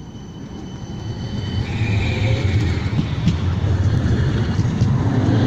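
West Midlands Metro tram, a CAF Urbos 3, running with a low rumble that grows louder over the first two seconds and then holds steady.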